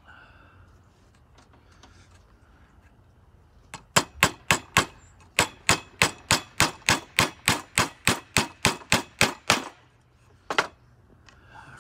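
Claw hammer driving a nail through rope into a wooden block. It makes about two dozen quick, sharp strikes at roughly five a second, with a short pause after the first few, then one more blow near the end.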